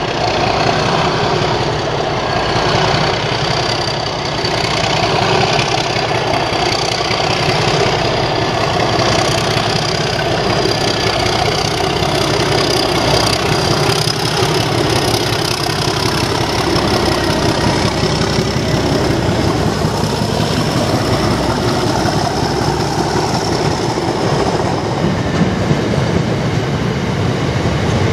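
Class 37 diesel locomotive with its English Electric V12 engine running as it approaches and passes, hauling an unpowered Class 357 electric unit; a thin steady high whistle sits over the engine sound until near the end. Near the end the unit's carriages pass with wheels clattering over the rail joints.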